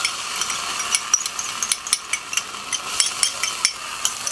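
Sizzling on a hot gas grill: a steady hiss with many sharp crackling ticks scattered through it, as ketchup goes into a small cast iron pot on the grate.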